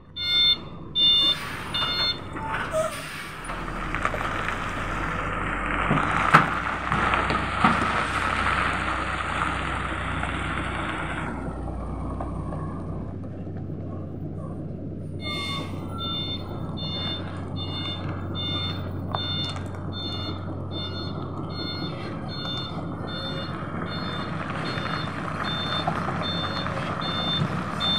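Semi-trailer truck manoeuvring. Its reversing alarm beeps about twice a second at the start and again from about halfway on. In between, for roughly ten seconds, the diesel engine runs louder under load and the beeping is not heard.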